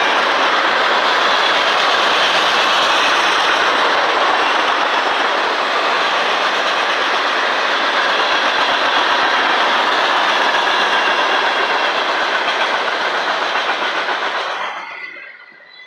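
Freight cars of a CSX manifest train (boxcars, tank cars and covered gondolas) rolling past, a steady noise of steel wheels running on the rails. It drops off sharply near the end.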